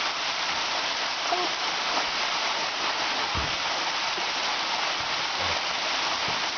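Waterfall crashing into its pool: a steady, even rush of falling water.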